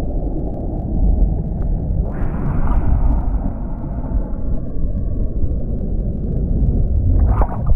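Deep, muffled rumble of churning whitewater from a breaking wave rushing past an action camera's microphone. A hissing rush of spray comes in about two seconds in, and there is a short splash near the end.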